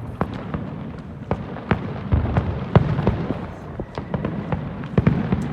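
Fireworks bursting in quick succession: irregular sharp bangs, about two a second, over a low rumble.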